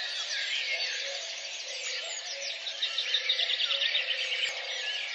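A dense chorus of small birds chirping and twittering, many overlapping calls, with a quick run of repeated chirps about three seconds in.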